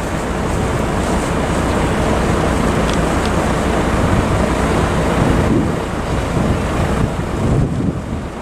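Wind buffeting the microphone: a steady, fluctuating rumbling noise.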